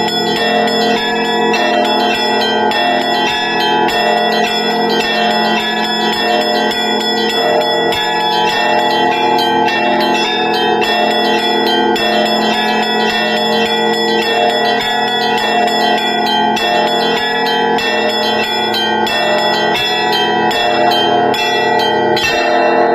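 Russian Orthodox church bells of a monastery belfry rung together in a continuous, dense peal. Many bells sound at once, and the small bells strike in quick succession over the deeper ringing ones.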